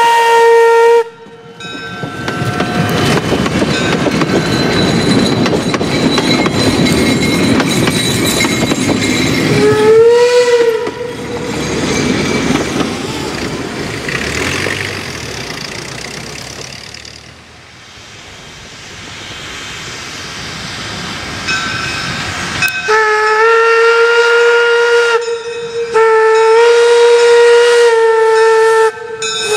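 Steam locomotive on a two-foot-gauge railroad: its whistle ends a blast, then the locomotive runs past with loud, noisy exhaust and wheel clatter that fades away over about 15 seconds, with a short rising toot of the whistle near the middle. Near the end the whistle blows two long blasts, the kind sounded for a road crossing.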